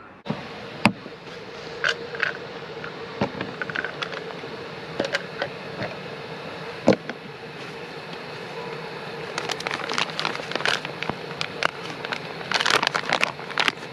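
Steady hiss and faint hum of a Jetboil camping gas stove burning, with scattered sharp clicks and crackles from handling gear that grow denser near the end.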